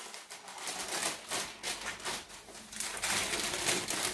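Baking paper rustling and crinkling in quick, irregular crackles as it is handled while a sheet of rolled pastry is turned over onto a cake tin.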